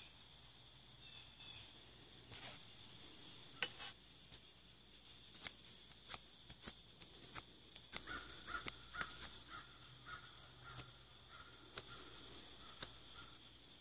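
A small knife carving and trimming the end of a wooden hand-drill spindle, giving sharp cutting clicks about once or twice a second. They stand over the steady high drone of insects.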